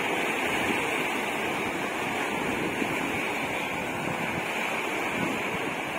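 Small waves breaking and washing up a sandy beach: a steady rush of surf.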